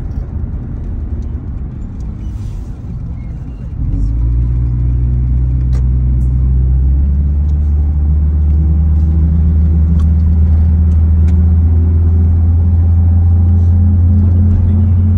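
Engine and road noise inside a moving van's cabin: a low rumble at first, then about four seconds in a loud, steady low drone sets in and holds.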